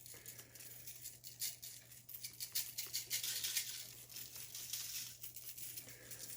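Dry barbecue rub shaken from a shaker container onto raw chicken legs: quick, irregular shakes with the granules pattering down.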